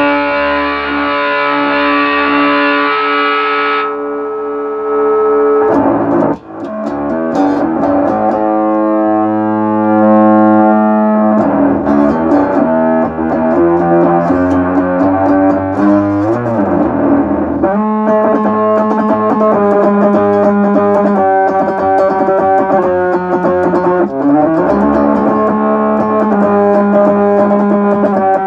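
Electro-Harmonix Bass MicroSynth pedal played with a bass guitar, giving held synth notes that change every few seconds, with a sweep in tone a few times. The pedal is producing sound again after its shorted chips were replaced.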